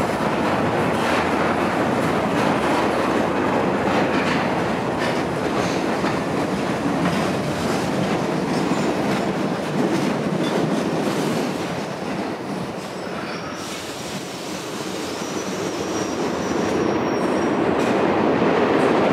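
New York City subway train running into the station: a loud steady rumble with the wheels clacking over rail joints. About two-thirds of the way in it eases off as the train slows, with a thin high wheel squeal, then the noise swells again near the end.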